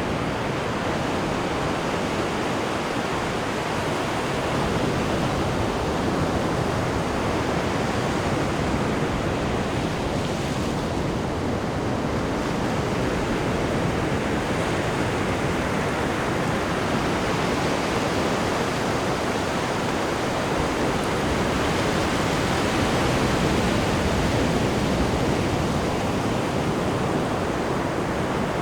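Ocean surf washing continuously against the shore, a steady rushing wash that swells and eases slowly without distinct single breakers.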